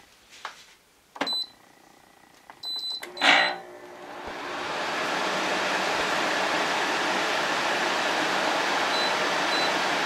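GE 8100 BTU window air conditioner: two control-panel beeps as its buttons are pressed, a thump about three seconds in as the unit starts, then its fan comes up within a second or so to a steady rush of air. Two faint beeps near the end.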